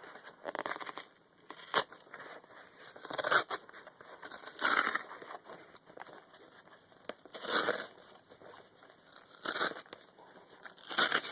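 A shipping package being torn open by hand: a series of separate ripping and crinkling noises, about seven in all, with the odd sharp click between them.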